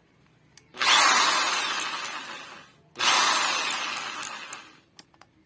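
Bosch GSB 13 RE corded impact drill run twice off its trigger, each time spinning up at once and then winding down with falling pitch over about two seconds.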